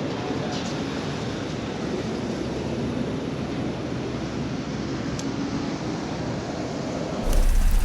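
Steady rushing outdoor noise. About seven seconds in it cuts abruptly to a deep, louder low rumble.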